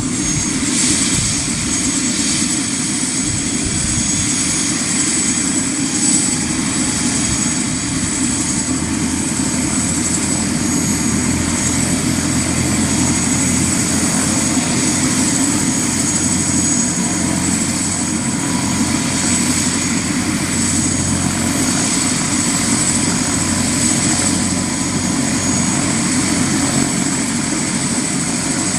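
AS350 B2 Esquilo helicopter running steadily: the high whine of its Turbomeca Arriel 1D1 turboshaft over the rotor's lower running noise, with no change in pitch or level.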